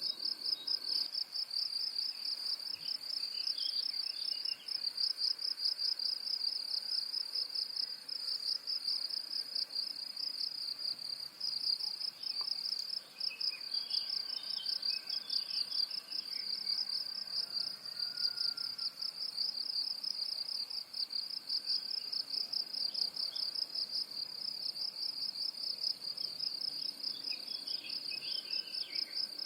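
Steady, high-pitched, rapidly pulsing trill of insects, with faint bird chirps a few seconds in, again in a cluster around the middle, and near the end.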